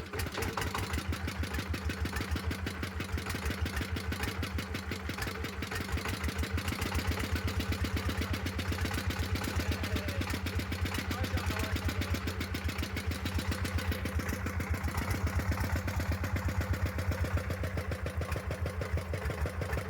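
Air compressor's engine running steadily with an even, rapid firing beat, freshly repaired.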